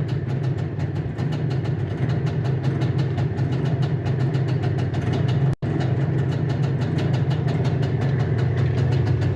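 IZh Jupiter-4 motorcycle's two-stroke twin-cylinder engine idling steadily with a fast, even exhaust beat. The sound drops out for an instant a little past halfway, then carries on.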